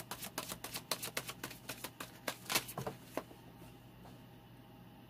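Tarot cards being shuffled by hand: a fast, irregular run of card clicks that stops about three seconds in.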